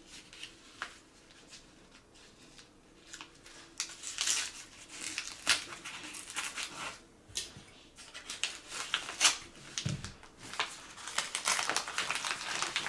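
Parcel packaging being crinkled and torn open by hand, in irregular rustles and crackles that are sparse at first and get busier after about four seconds, with a soft thump near the end.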